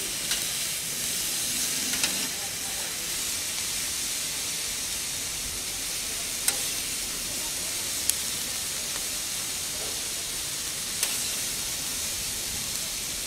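Bell peppers and mushrooms sizzling steadily on a hot plancha griddle, with a few sharp clicks of a metal spatula against the cooking plate.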